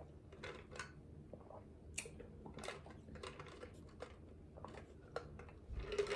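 Drinking through a straw from a tumbler: faint, irregular sucking, swallowing and small mouth clicks, with a louder slurp near the end.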